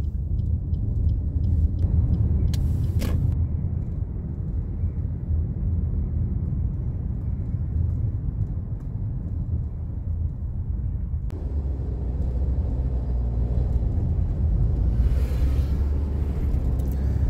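Steady low road and engine rumble heard inside a moving car's cabin. There is a brief knock about three seconds in, and the sound shifts abruptly about eleven seconds in.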